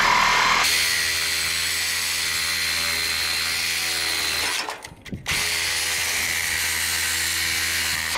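Reciprocating saw (Sawzall) running steadily while cutting metal from an air-conditioner unit, stopping for about half a second near the middle and then starting again.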